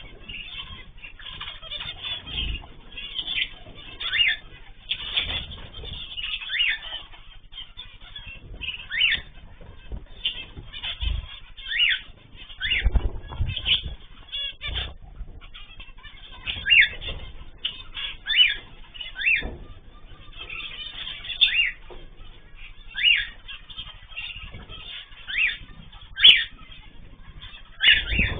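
Pet birds calling: short calls that slide down in pitch, repeated every second or two, over wing flutter and low knocks.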